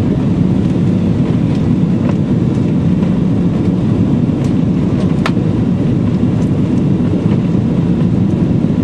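Steady airliner cabin noise heard from a window seat on the approach to land, a constant low rumble. A few faint clicks sound over it, the clearest about five seconds in.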